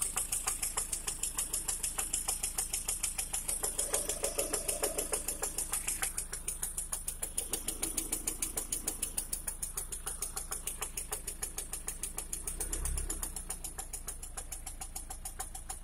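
Lada Priora four-cylinder petrol engine running with a fast, even metallic knocking, a diesel-like clatter that the owner links to the replaced factory piston group. A low thud about thirteen seconds in.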